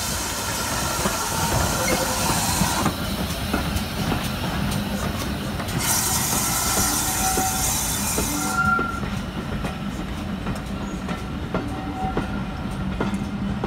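GWR 4575-class Small Prairie 2-6-2 tank locomotive 5526 and its coaches rolling slowly, with wheels clicking over the rail joints and a few brief squeals from the wheels. There is a steady hiss in two stretches, near the start and in the middle.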